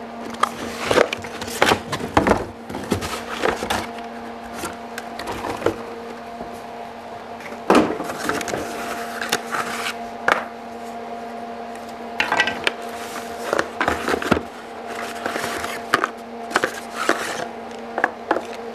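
Cardboard packaging and plastic jig parts being handled: rustling and scraping, with many irregular knocks and clicks as pieces are lifted out of the box and set down on the wooden workbench. A steady low hum runs underneath.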